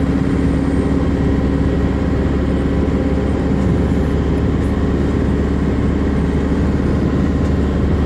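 Steady road and engine noise of a moving car, heard from inside its cabin.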